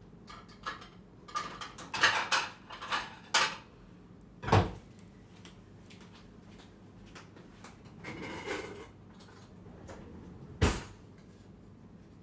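Dishes and cutlery clattering as food is served from a stainless steel pot: a quick run of clinks and clatters, a heavier thump about four and a half seconds in, a scraping rustle around eight seconds in, and a sharp knock near the end.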